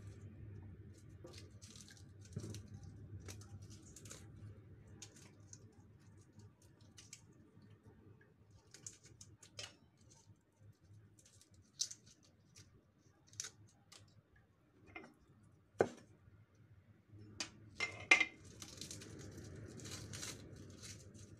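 Garlic cloves being peeled by hand: dry papery skins crackling and tearing, with small taps and clicks as cloves and skins drop onto a wooden chopping board. A few sharper clicks come near the middle and toward the end, over a low steady hum.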